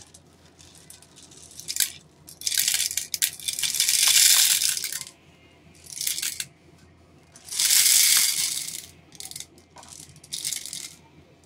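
Plastic airsoft BBs pouring from a BB storage bag's spout into an MP5 magazine's small fill hole: a dense, high rattle that comes in four spells with short pauses between.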